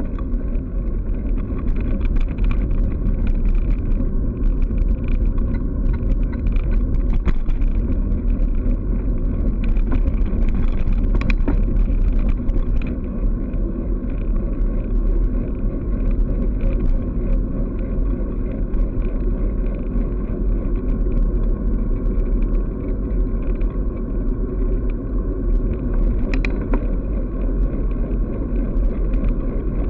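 Steady low wind rumble on the microphone of a bicycle-mounted camera during a fast downhill ride, mixed with tyre noise on asphalt, with a few sharp clicks now and then.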